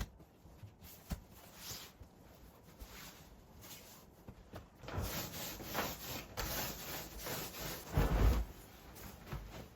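Rubbing and scraping handling noises, a series of irregular strokes that grow busier toward the end, with a heavier thump about eight seconds in.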